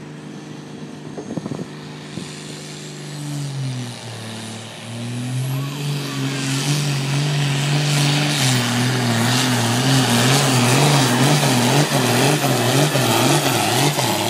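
A John Deere 4455 pulling tractor's diesel engine runs steadily, sags briefly as it takes the load of the pull sled, then climbs to full throttle and grows louder. From about halfway on, its pitch wavers up and down in a regular beat: the engine is hunting against the governor that keeps it under the class's 3,000 RPM limit.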